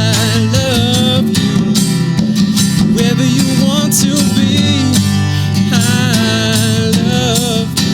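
A live roots jam band playing, with acoustic guitar strumming under a wavering melody line.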